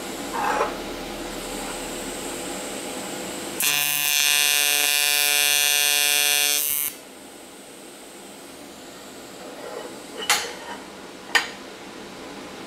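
AC TIG arc on aluminum from a Primeweld 225, a loud steady buzz that starts abruptly and cuts off after about three seconds while a tack is put on the joint. Two sharp knocks follow near the end.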